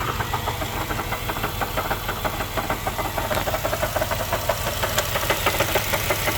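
Supercharged 4.2-litre V8 of a 2004 Jaguar XJR idling rough and below its proper idle speed, with a rapid run of clanks over the steady engine rumble. The owner puts the clanking down to the supercharger being upset by the rough idle.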